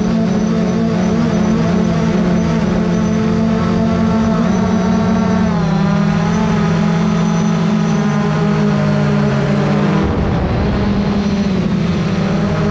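Drone's electric motors and propellers whining steadily, the pitch stepping down about halfway through, breaking up briefly near the ten-second mark and then climbing back up.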